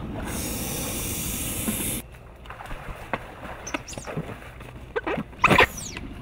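A steady hiss for about two seconds that cuts off suddenly, then short squeaks and rubs of an inflatable vinyl dolphin being handled and tied with rope, the loudest squeak about five and a half seconds in.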